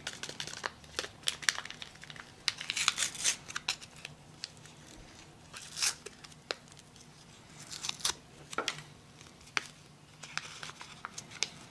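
A small packet being handled and opened: crinkling and rustling with sharp little clicks and tearing, coming in irregular bursts.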